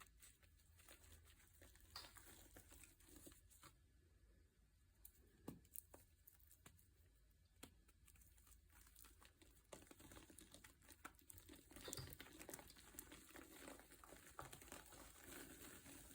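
Quiet crinkling and crackling with scattered small sharp clicks, growing denser and louder in the second half.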